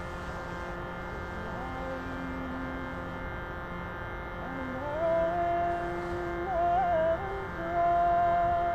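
Slow music: a steady drone under long held notes sung by a woman's voice, a low note first, then louder, higher held notes with a brief waver.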